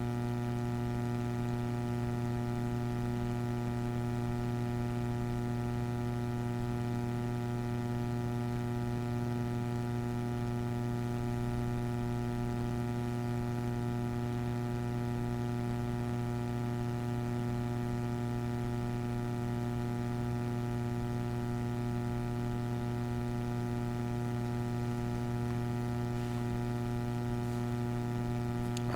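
Steady electrical mains hum with a stack of evenly spaced overtones, unchanging throughout.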